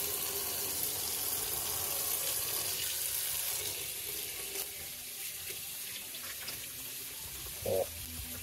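Kitchen faucet running cold water onto a plastic disc held in a plastic tub in a stainless-steel sink, splashing as the clear glue is rinsed off. A steady rush of water that drops a little in level after about four seconds.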